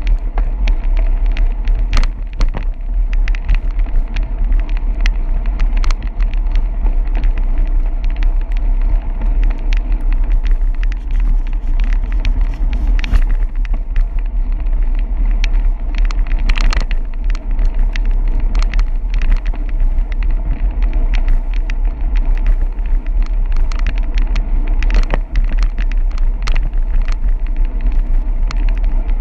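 Wind buffeting the microphone of a camera riding along on a moving bicycle: a loud, steady, deep rumble, with tyre hiss on wet pavement and frequent sharp ticks and knocks.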